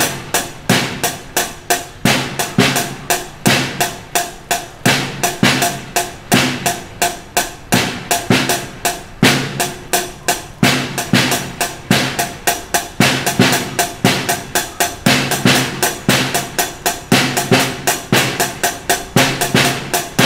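Drum kit played in a steady beginner pattern: sticks strike the hi-hat in an even pulse of about four strokes a second, with snare hits mixed in.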